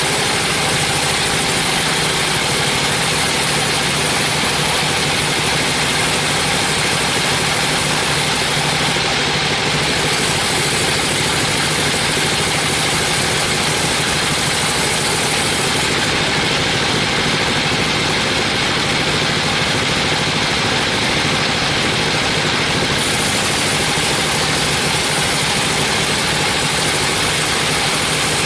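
A 42-inch bandsaw mill running steadily, its blade ripping lengthwise through a teak beam. The sound is a continuous saw noise over the machine's hum, with the hiss thinning a little for a few seconds midway.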